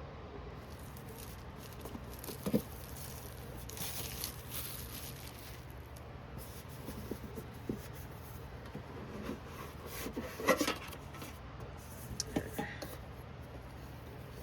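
Handling sounds of a collector's tin and its contents being opened and unpacked: scattered taps and knocks, the sharpest about ten and a half seconds in, with a brief rustle around four seconds in.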